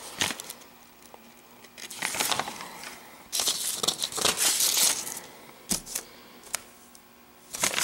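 Sheets of paper rustling as they are handled and flipped over: several short rustles, with a longer stretch of rustling from about three to five seconds in.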